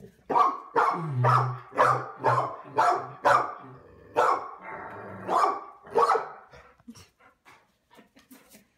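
Dog barking at a man's low voice blown through a long cardboard tube: about ten loud barks over six seconds, with the low drone of the tube under them, then the barking stops.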